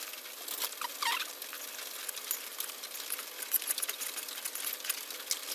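Hot oil sizzling and crackling in a karahi as fried dried fish is scooped out with a metal spatula; a steady hiss with dense, irregular crackles.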